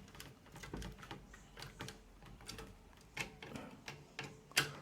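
Faint, irregular small clicks and taps of a screwdriver tightening case-fan screws into a PC case, with a sharper click near the end.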